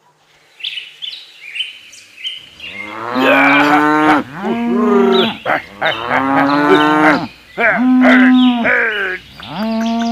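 Cattle mooing: about five long calls one after another, starting about two seconds in. Faint short chirps come before them.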